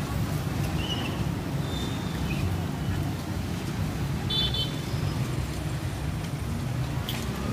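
Busy street ambience: a steady low rumble of traffic with indistinct background voices. A few brief high metallic pings sound, the clearest about four and a half seconds in.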